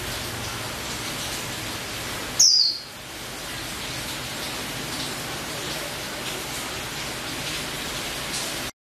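Female white-eye (pleci) giving one loud, short falling call about two and a half seconds in, with faint high chirps elsewhere, over a steady hiss; the sound cuts off suddenly near the end.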